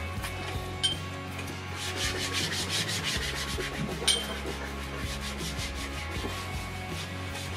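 A hand tool rubbing over wall plaster in quick, rhythmic scraping strokes, about four a second. Two sharp clicks with a short ring come about one second and four seconds in.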